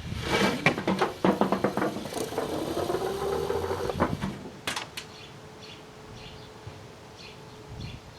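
Fireworks going off inside a running microwave oven: dense crackling and hissing bursts for about four seconds with a wavering tone in the middle, then two sharp pops close together about five seconds in. After that only the oven's steady hum is left, with faint high chirps.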